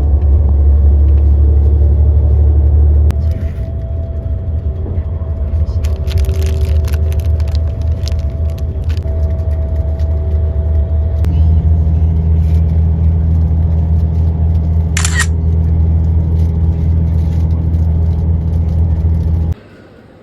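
Steady low rumble of a moving vehicle heard from inside, with faint voices under it; it cuts off suddenly near the end.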